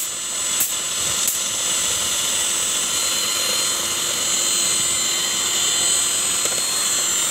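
Electric hand mixer running steadily, its twin beaters whipping a cooled milk and vanilla mixture to a froth for ice cream.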